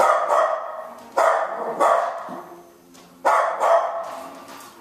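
Four loud, rough barks, the last after a pause of over a second.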